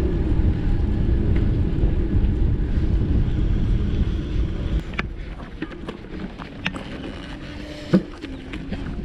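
Wind rumble on a road bike's handlebar-mounted action camera while riding, easing off about halfway as the bike slows. A few sharp clicks follow, with a louder knock near the end as the bike rolls onto rougher ground.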